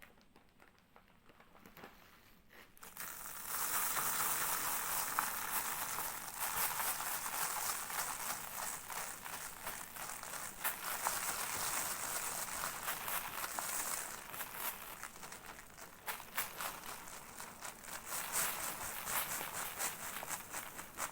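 Sand crumbling and collapsing on cardboard: a dense gritty crackle of many tiny clicks and hiss. It starts faint and builds up about three seconds in.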